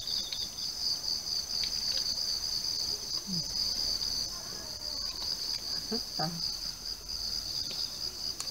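A steady, high-pitched chorus of insects with a fast pulsing.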